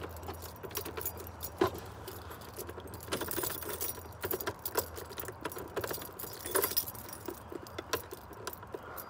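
A bunch of keys jangling and clicking in short, irregular bursts as they are handled.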